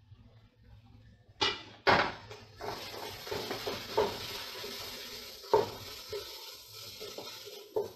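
Wooden spoon stirring diced vegetables in a stainless steel pot, knocking sharply against the pot's side a few times, with a steady sizzle from the pot beginning about two seconds in.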